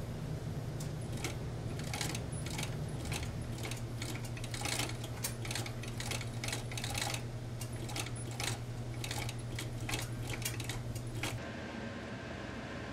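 Furrier's fur sewing machine with disc feed wheels running as it stitches mink fur: a steady motor hum with quick, irregular clicking, stopping about eleven seconds in.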